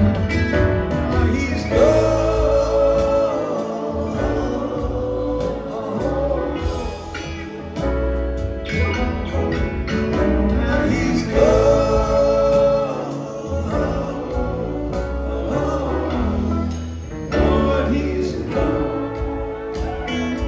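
Live rock band playing a song, with a male lead voice singing long held lines over the band, heard as a loud concert recording.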